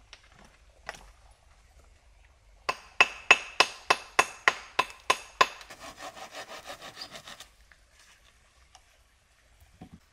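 Wood being cut with a hand saw: a run of about ten sharp strokes, roughly three a second, then about two seconds of quicker, softer strokes before it stops.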